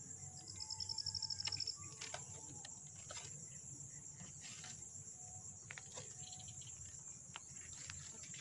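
Insects chirring steadily at a high pitch. About half a second in, a faster pulsed trill comes in, about ten pulses a second, and stops after about a second. A few faint clicks and rustles come through underneath.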